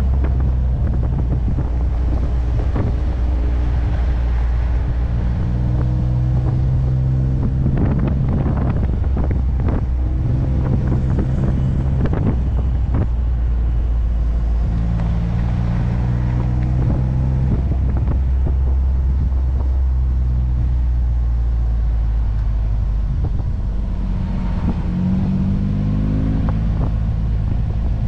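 Ford Bronco engine running at low revs while driving an off-road trail, its pitch stepping up and down with the throttle and rising near the end as it speeds up. Occasional knocks and rattles come through.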